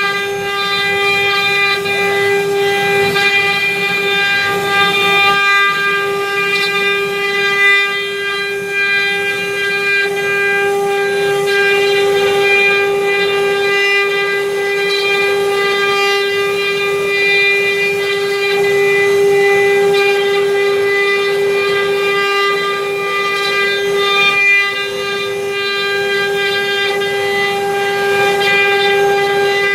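CNC wood router's spindle running with a steady high whine while it carves wood, with cutting noise underneath.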